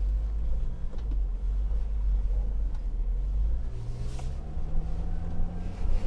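JMC Yusheng's 2.4-litre turbodiesel engine running at low speed with a deep rumble; about three and a half seconds in its revs rise and hold higher.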